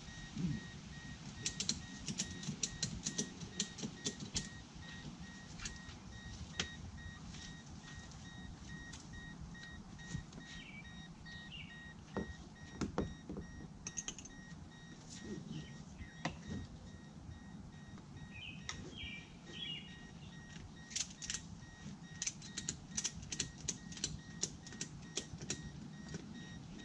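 Tie-down straps and their buckles clicking and rattling as they are pulled tight over a kayak on a car's roof. The clicks come in quick runs near the start and again near the end, with a few heavier knocks in between. A faint high beeping tone repeats underneath.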